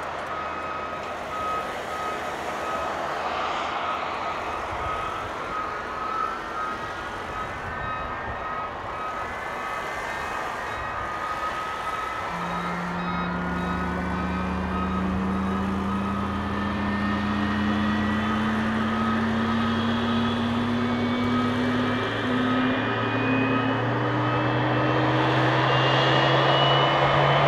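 Boeing 767-300ER turbofan engine spooling up during pushback: a high whine climbing slowly in pitch, joined about halfway by a strong low hum that also rises, growing louder toward the end. A pushback tug's repeating beep sounds through the first half.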